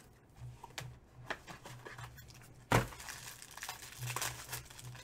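Foil wrapper of a 2017 Topps High Tek baseball card pack being torn open and crinkled by hand, with one loud, sharp rip a little past the middle.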